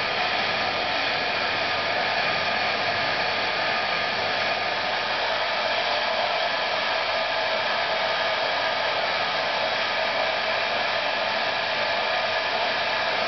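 Handheld hair dryer running steadily on its highest power setting: an even rush of air with a faint constant whine in it.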